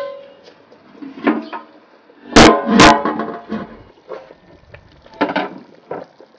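Two loud metal clanks about two and a half seconds in, a thin aluminium cooking-pot lid knocking against the pot, with a few quieter knocks before and after.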